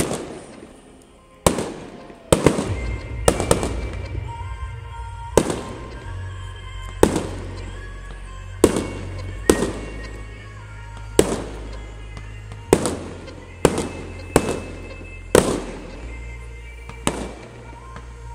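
Fireworks shells bursting in the air, a sharp bang every second or so with echoing tails, some in quick pairs. Music with a steady bass plays underneath.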